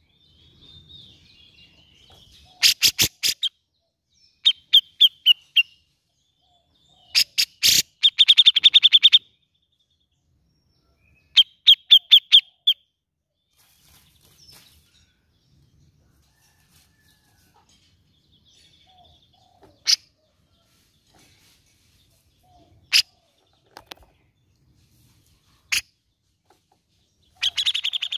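Grey-cheeked bulbul (cucak jenggot) calling in quick bursts of rapidly repeated notes, four bursts in the first half. These are followed by a few single sharp notes spaced seconds apart and another burst near the end.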